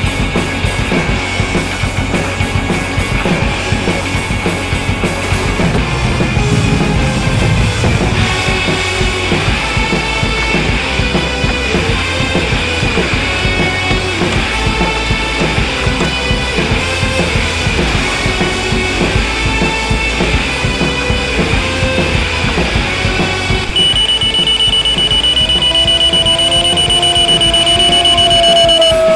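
Rock-style background music with drums. In the last few seconds a steady high-pitched tone sounds over it.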